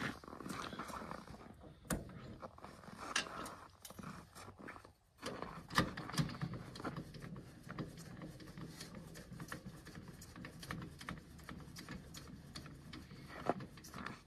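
Footsteps crunching in snow, then scattered metal clicks and clanks as the trailer's coupler and tongue jack are worked by hand.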